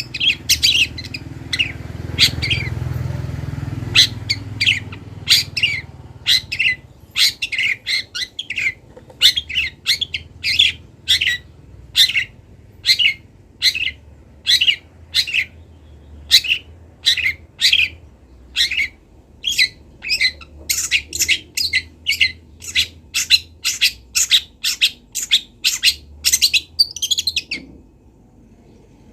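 Juvenile long-tailed shrike (cendet) calling in a long series of short, high chirps, about one and a half to two a second, a young bird practising its song; the calls stop shortly before the end. A low rumble sounds underneath for the first few seconds.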